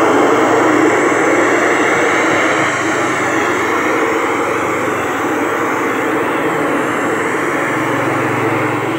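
Large carnival sound system (sound horeg) being sound-checked, putting out a loud, steady roar of noise that comes in suddenly at the start.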